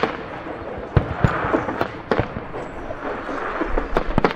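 Aerial firework shells bursting: several sharp bangs at irregular intervals, two of them close together near the end, with a hiss lingering between them.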